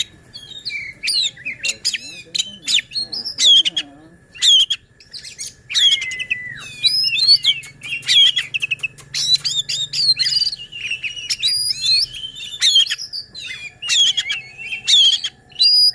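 Oriental magpie-robin (kacer) singing hard and without pause: a fast, varied stream of sharp whistles, chirps and quick rising and falling notes.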